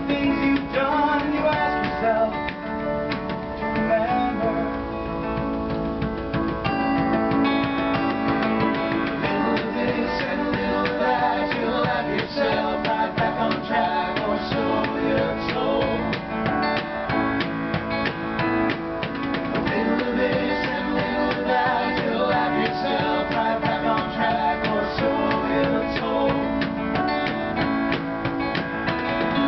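Live band music led by strummed acoustic guitar, with a wavering melody line over it.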